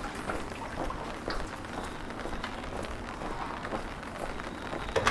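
Footsteps on wet cobblestones, about two steps a second, each with a light wet splash, over a steady hiss of the wet street and light rain. A louder knock comes near the end.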